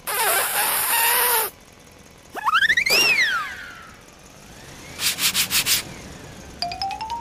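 A string of edited-in cartoon sound effects: a loud splash-like noise burst lasting about a second and a half, then a whistle that rises in steps and falls away, a quick rattle about five seconds in, and near the end a tone that climbs in clicking steps.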